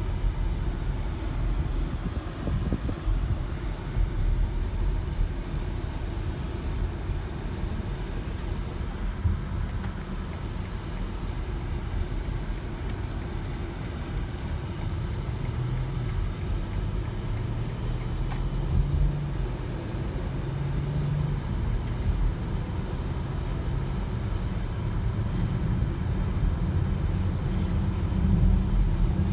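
Cabin sound of a BMW X7 under way and gaining speed: a steady low road and engine rumble, with a low engine note that rises and falls around the middle.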